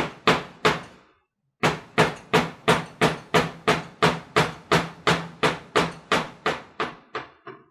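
Plastic-faced mallet tapping the end of a Thunder Tiger Pro .46 glow engine's crankshaft to drive it out of the crankcase. There are three taps, a short pause about a second in, then a steady run of about three taps a second that grows lighter near the end.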